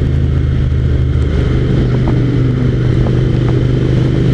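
Suzuki SV1000S's V-twin engine running steadily at cruising speed under road and wind noise.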